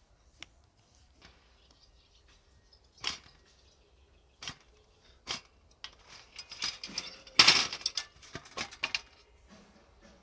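Wire rack and stainless-steel tray being handled: scattered light knocks and clinks, thickening into a cluster of rattles with the loudest burst about seven and a half seconds in.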